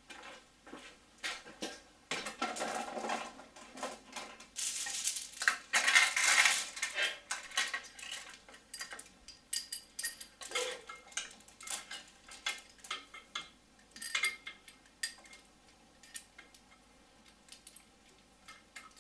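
Steel lifting chain clinking and rattling as it is handled and hooked onto an engine's lifting points. The rattling is densest and loudest a few seconds in, then thins out to scattered clinks.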